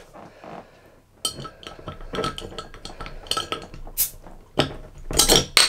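Small metal keyring bottle opener clinking and scraping on the crown cap of a glass ale bottle as it is levered, a run of sharp metallic clicks. Louder rasping bursts come near the end as the cap is prised off.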